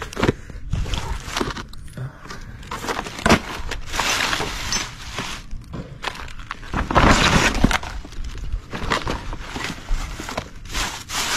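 Plastic bags and paper rustling and crinkling while discarded items are pulled about in a junk pile, with scattered light knocks and clatters; the crinkling is loudest about four seconds in and again around seven seconds in.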